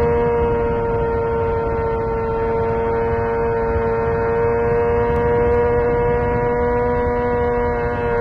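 Yamaha R6's inline-four engine held at steady high revs while cruising at highway speed, a single unchanging high-pitched whine over the low rush of wind.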